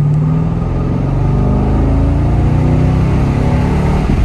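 2011 Chevrolet Camaro SS's 6.2-litre V8, heard from inside the cabin, accelerating hard through the gears. The revs drop at the very start as it changes up, climb steadily through the next gear, then break off for another shift near the end. It pulls without cutting out, the power-loss hesitation cured by a new OEM mass airflow sensor.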